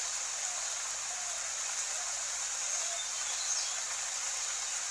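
Steady rain: an even, unbroken hiss of rainfall.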